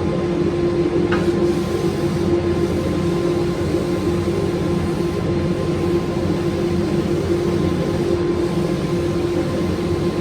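Makita belt sander running steadily with an even motor and belt drone as it sands wooden brick mould. A faint tick comes about a second in.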